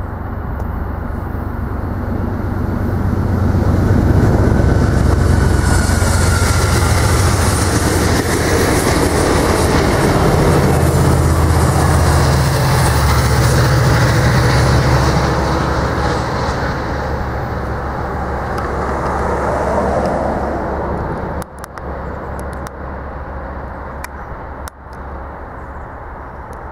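Amtrak Cascades passenger train passing at speed, its EMD F59PHI diesel locomotive drawing Talgo coaches: a low engine drone and rail noise build up, hold loud for several seconds, then fade. Near the end a quieter rumble of the train approaching, with a few clicks.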